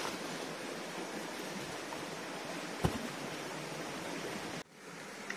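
A heavy stone block set down on bare dirt ground with a single dull knock about three seconds in, over a steady outdoor hiss.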